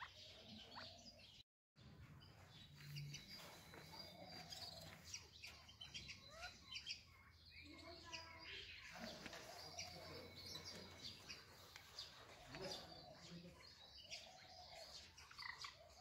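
Faint bird chirps and short calls, repeating irregularly: many quick high chirps with lower arched calls among them.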